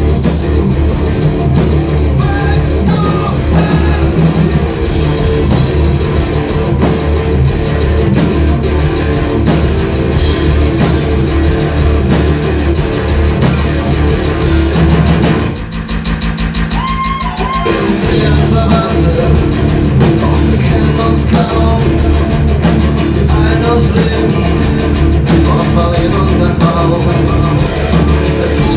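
Live rock band playing loud, with electric guitars and a drum kit. About halfway through, the drums drop out for roughly two seconds, leaving a thinner passage with a fast even pulse, before the full band comes back in.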